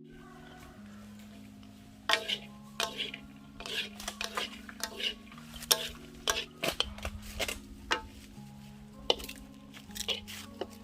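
A metal utensil stirring and knocking in a metal pan: irregular sharp clacks and scrapes, some with a brief metallic ring, starting about two seconds in. Background music with slow held notes plays underneath.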